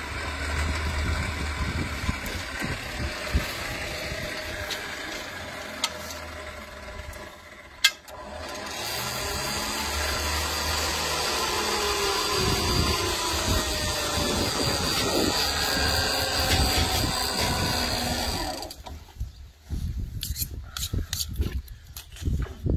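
Motorised hoist on the truck lifting a skinned bull carcass on its hook. The motor runs steadily, dips briefly about eight seconds in and stops near the end, after which there are irregular knocks and handling sounds from the hanging carcass.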